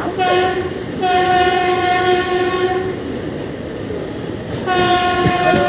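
Train air horn sounding a short blast, then a long steady blast, then a third blast starting near the end. Between the blasts a thin high wheel squeal rises over the rumble of the train.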